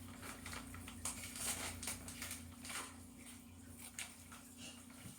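Faint scattered clicks and light rustling of hands handling bike parts, over a steady low hum.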